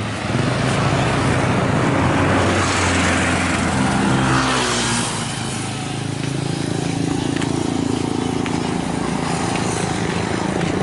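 Motorcycle engine running steadily at low speed, with wind and road noise. A passing vehicle swells up and fades between about two and five seconds in.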